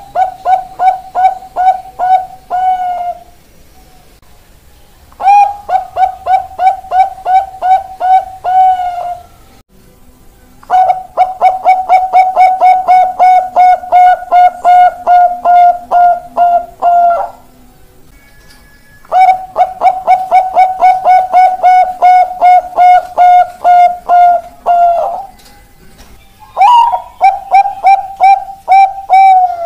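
Bangkok-type zebra dove (perkutut) singing its long song: five phrases, each a quick string of short, evenly repeated coo notes at one pitch. The phrases last about three to six seconds, with short pauses between them, and the longest comes in the middle.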